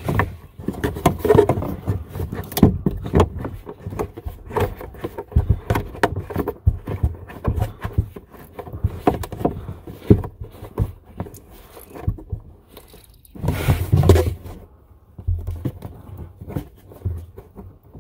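Hand-tightening the plastic nut of a hot-water supply line onto a faucet's brass shank under a sink: irregular scraping, rubbing and small clicks, with a louder scuffle about two-thirds of the way through.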